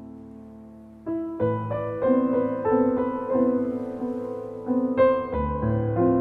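Slow instrumental piano music: a soft held chord, then from about a second in a gentle, even run of notes over a low bass.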